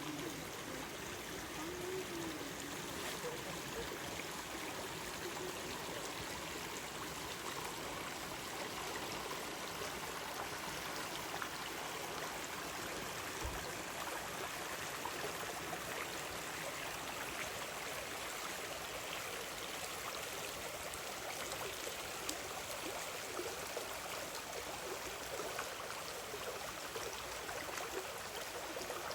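A small stream flowing with a steady, even rush of water.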